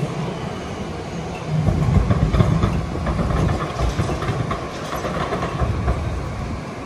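Rail vehicle passing close by: a low rumble with rapid clicking, growing louder about a second and a half in and easing off near the end.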